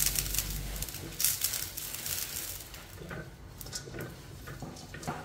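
Fat sizzling in a hot aluminium wok as it is brushed around the pan, the hiss loud at first and dying down within about a second, followed by light scattered taps and scrapes of the brush against the metal.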